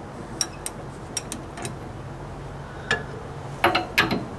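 Ratchet wrench clicking in short, irregular strokes as a nut on the truck's steering linkage is worked loose, with a few clicks in quick succession near the end.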